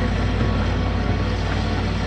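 Heavy diesel engine of construction machinery running steadily with a deep, even hum.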